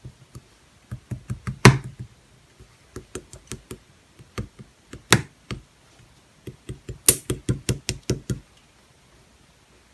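Quick runs of short tapping clicks, several a second, in four bursts with short pauses between them, like typing. The loudest single taps come at about 1.7, 5.1 and 7.1 seconds, and the tapping stops about 8.5 seconds in.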